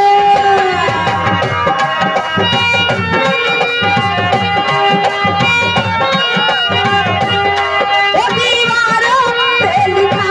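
Live band music with a tabla-led drum rhythm under a wavering melody line, without words.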